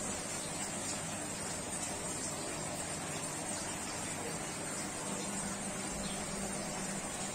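Steady hiss of aquarium filter and pump equipment running, with a faint low hum and a thin high whine throughout.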